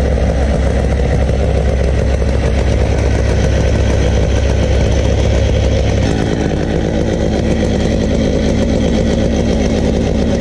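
Stihl MS880 two-stroke chainsaw engines idling steadily on a double-ended chainsaw mill, before the cut begins. The low engine note shifts about six seconds in.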